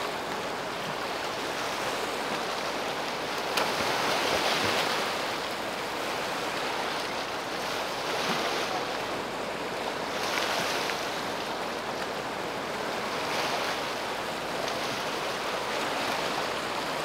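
Fast river rapids rushing steadily, swelling a little louder now and then.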